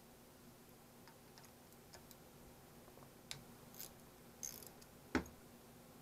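Faint small metal clicks and scrapes of a screwdriver working screws out of a rusty sump pump's motor housing, with one sharper knock a little after five seconds in.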